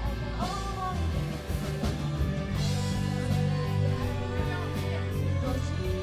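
Live rock band playing: a singer's voice over electric guitars and keyboard, with a heavy steady bass and a regular beat.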